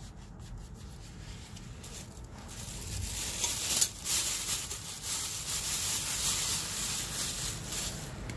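Scratchy rubbing noise that starts about two and a half seconds in and stays loud, with one sharper scrape partway through.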